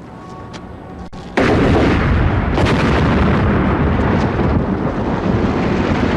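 A large explosion bursts in suddenly just over a second in and carries on as a long, loud rumble.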